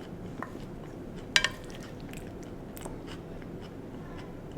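A person chewing and biting sweet potato boats close to the microphone, with small clicks and one sharp, ringing click about a second and a half in.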